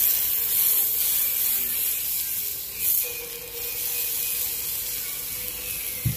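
Slices of beef sizzling and crackling as chopsticks press them onto a hot stone on a cast-iron steak plate. The hiss is strongest in the first second or so and flares again about three seconds in, with a short low knock near the end.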